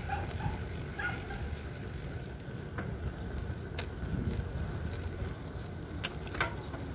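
Steady low rumble of wind on the microphone of a camera riding along the road, with a couple of sharp clicks about six seconds in.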